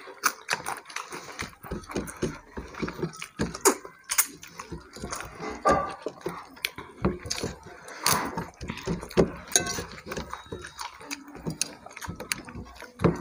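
Close-up eating sounds of people eating rice and curry by hand: chewing and mouth smacking, fingers mixing wet rice on plates, in a quick irregular run of short clicks and smacks.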